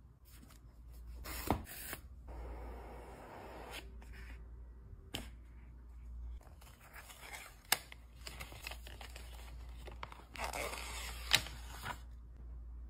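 Quiet unboxing sounds: the cardboard and paper packaging of a Google Pixel Fold box rustling, sliding and tearing as it is opened, with a few sharp clicks as the phone and inner sleeve are handled.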